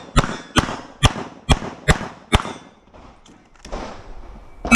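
CZ Shadow 2 9mm pistol firing a rapid string of six shots, about two a second, then a pause of about two seconds and another shot right at the end.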